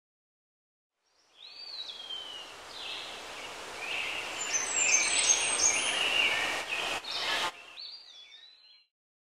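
Bird calls, curving whistles and chirps, over a steady rushing hiss. It fades in about a second in, is loudest midway, drops sharply near seven and a half seconds and fades out.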